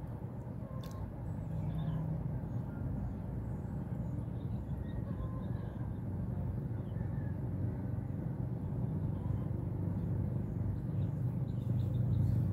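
Steady low outdoor background rumble, with a few faint high chirps scattered through it and a small click about a second in.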